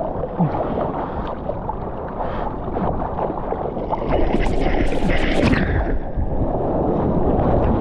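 Water rushing and splashing against a surfboard as a surfer paddles, picked up by a GoPro close to the water. The splashing is loudest and hissiest around four to five seconds in, as an arm strokes through the water beside the board.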